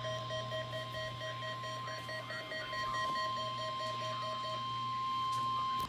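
NOAA Weather Radio's 1050 Hz warning alarm tone: one long, steady, high beep heard through a weather radio receiver, swelling slightly and cutting off abruptly near the end. It is the alert tone of the station's required weekly test, following the SAME data bursts.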